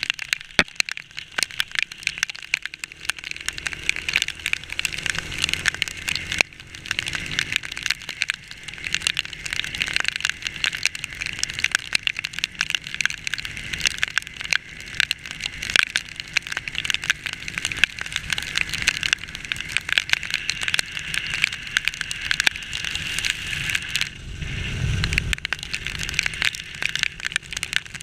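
Heavy rain pelting the rider-mounted camera on a moving motorcycle, a dense, steady patter of drop hits. A brief low rumble comes near the end.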